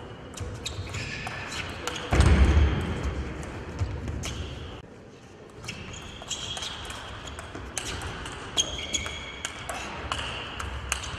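Table tennis rally: the ball clicking off bats and table in quick succession, with short high squeaks that fit shoes on the court floor and a louder burst about two seconds in.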